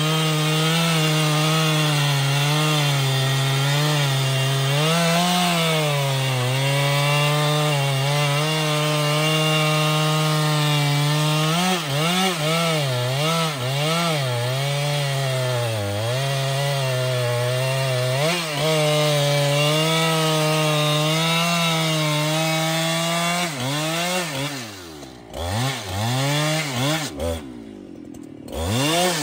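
Husqvarna 395XP two-stroke chainsaw cutting through a thick trembesi (rain tree) log at full throttle, its engine note sagging and recovering as the chain loads up in the wood. Near the end the revs drop to a quieter low run for a few seconds as the bar comes out of the cut, then rise again.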